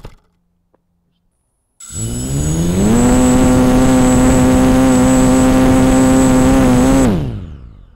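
Walkera 250 quadcopter's brushless motors and propellers spinning up with a rising whine after a second or two of silence, holding a steady high pitch for about four seconds, then winding down near the end. The quad stays on the ground and does not lift off.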